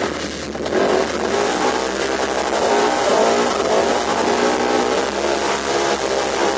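Polaris RZR 900 Turbo UTV engine running hard under racing load, its pitch rising and falling as the throttle works.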